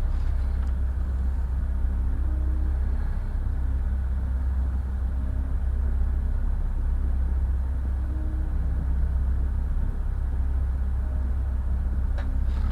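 Steady low background rumble, even in level, with faint short tones above it and no distinct tool or wood sounds.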